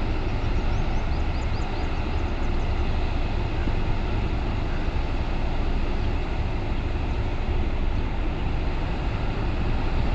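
Workover drilling rig machinery running with a steady, heavy low rumble. A few faint high chirps sound in the first few seconds.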